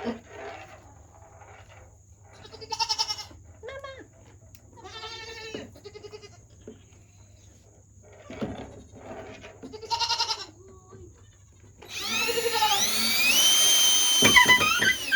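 Nigerian Dwarf goats bleating, three short wavering calls spread through the first ten seconds. About twelve seconds in, a power drill whines, rising in pitch and then holding steady for about two seconds as it drives a fastener for the feeders.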